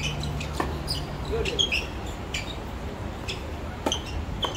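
Tennis ball struck by rackets and bouncing on a hard court during a rally, a few sharp knocks a second or two apart, over a low steady hum and short high chirps.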